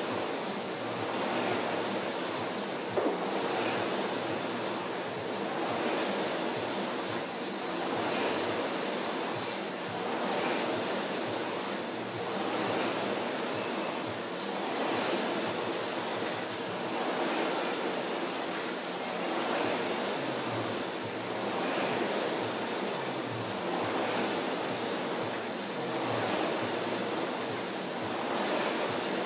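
Concept2 indoor rowing machines' air-resistance flywheel fans whooshing steadily, surging with each stroke about every two seconds. A single sharp knock about three seconds in.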